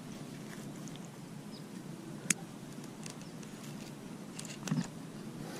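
Quiet outdoor ambience: a steady low rumble of noise with a few scattered faint clicks, one sharp click a little over two seconds in and a small cluster near the end.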